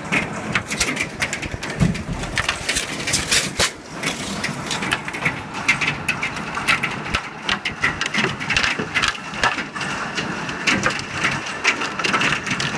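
Hailstorm: hailstones clattering down on roofs and ground in a dense, irregular patter of sharp hits over the hiss of heavy rain.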